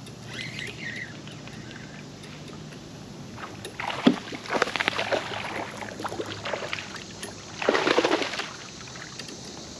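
A hooked bass splashing at the surface beside a kayak, in a run of short splashes, then the loudest splash about eight seconds in as it is scooped into a landing net.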